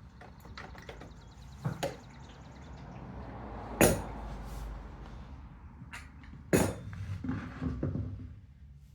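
Several sharp knocks and clunks of tools and parts being handled, the loudest about four and six and a half seconds in, with a few lighter ones near the end, over a low steady hum.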